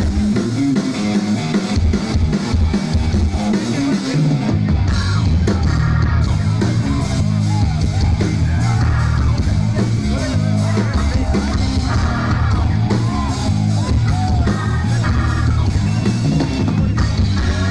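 Live rock band playing through a concert PA, heard from the audience: drum kit, electric guitars and keyboard, with a heavy bass low end coming in about four seconds in.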